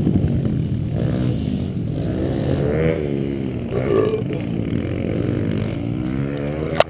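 Small pit bike engine running close by, its pitch rising and falling a few times with the throttle, with a sharp click near the end.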